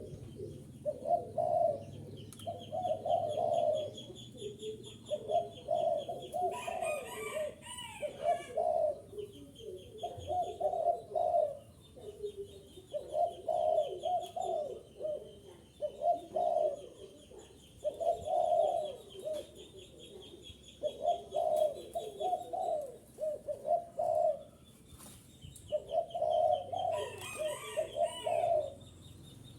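Spotted dove cooing over and over in short phrases of about a second each, with brief gaps between them. A faint high trilling runs along with the cooing, and twice a short, harsher, noisier burst cuts in.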